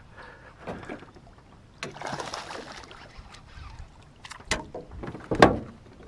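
A hooked smallmouth bass splashing at the surface beside an aluminum boat as a landing net goes into the water. Sharp knocks of gear against the metal hull come a few times, the loudest about five and a half seconds in.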